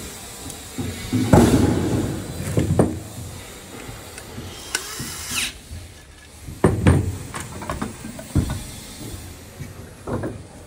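Metal lock-handle hardware being handled and fitted: a series of separate knocks and clatters of metal plates and parts against each other and the table.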